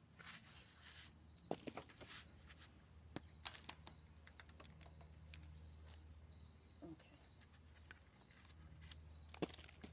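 Hands pulling up potato plants and digging through loose potting soil: scattered rustles, crackles and soft scrapes, loudest about three and a half seconds in.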